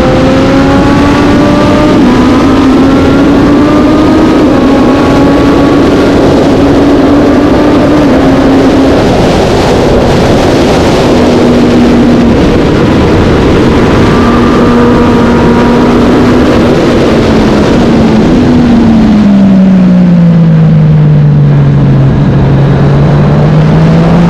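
Racing motorcycle engine running hard at high revs over a heavy rushing noise. Its pitch holds fairly level for a long stretch, then drops as the bike slows and climbs again as it accelerates near the end.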